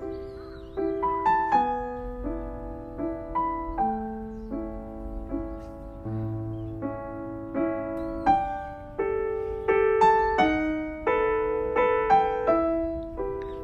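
Background piano music: a gentle melody of single struck notes and chords.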